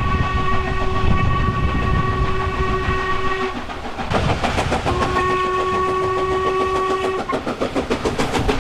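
Train horn sounding two long chord blasts, the second after a short gap about four seconds in, over the fast rhythmic clickety-clack of a train running on jointed rails.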